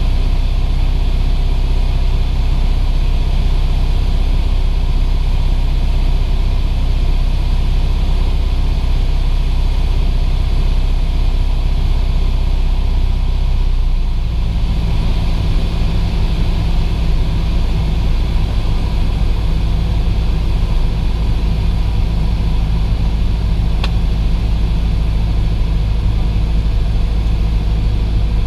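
Cessna 172's piston engine and propeller droning steadily in cruise, heard from inside the cabin. About halfway through, the low drone grows heavier.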